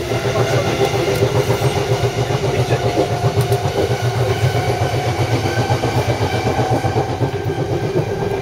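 Southeastern passenger train running along the line, heard from inside the carriage: a rapid rattling rumble from the wheels and track with steady tones above it, getting louder right at the start.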